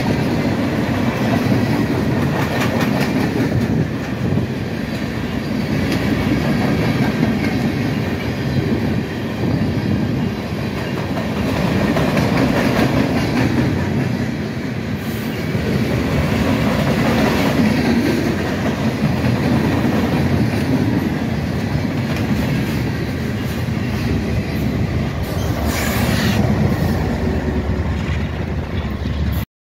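Norfolk Southern freight train rolling past close by, a steady loud rumble and clatter of wheels on the rails that swells and eases, with brief high wheel noise about halfway and again near the end. The sound cuts off suddenly at the very end.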